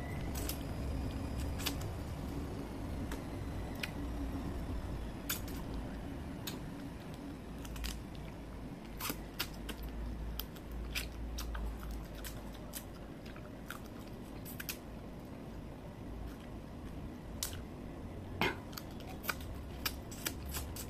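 Eating boiled crab by hand: irregular sharp clicks and cracks of crab shell being broken and picked apart, with chewing at the mouth, over a low steady hum.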